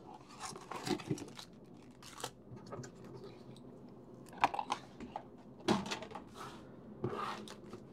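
Cardboard blaster box and foil trading-card packs being handled: scattered short crinkles, rustles and light taps as the packs are pulled from the box and set down on the desk.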